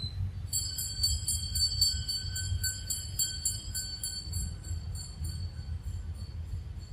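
A small metal bell jingling rapidly, about five strokes a second, starting about half a second in and fading out over the last couple of seconds.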